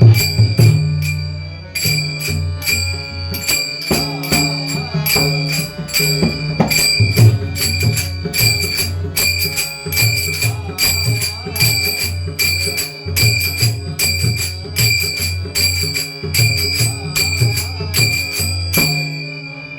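Devotional bhajan music: small hand cymbals struck in a steady rhythm, ringing brightly, over a low drum beat and a wavering melody line.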